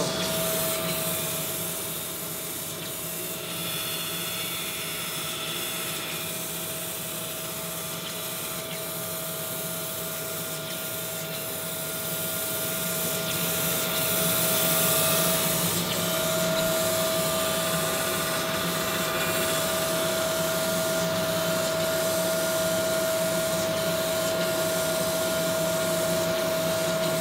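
Crankshaft grinding machine running, its grinding wheel lightly grinding a crankshaft main bearing journal under coolant: a steady whine over a hiss, louder about halfway through. These light grinding noises mark the wheel first touching the journal to find the size, wiping off the felt-pen line.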